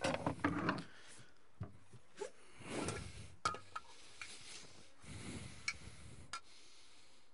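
Knocks, scrapes and rubbing of a wooden trapdoor in a deck being handled and reached into, with a cluster of knocks in the first second, then scattered sharp clicks and knocks.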